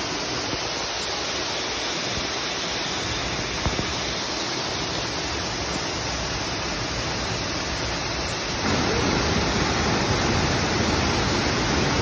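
Waterfall plunging into a pool: a steady rush of falling water that grows a little louder and fuller about nine seconds in.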